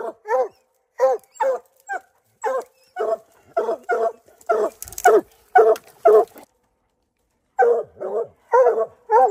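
Hunting dogs barking steadily at a treed opossum, short barks about two to three a second with a brief break near the end: the bark of dogs that have treed their game.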